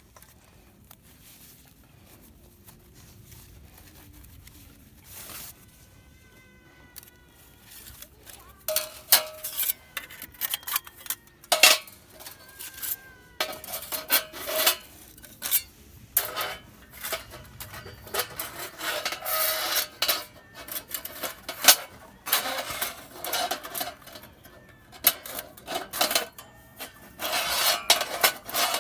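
Hard objects clinking, knocking and clattering in irregular bursts, some hits leaving a short ringing tone like metal gear being handled.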